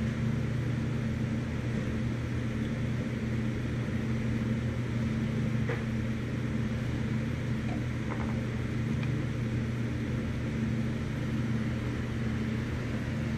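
Steady low machine hum that does not change, with a few faint light clicks.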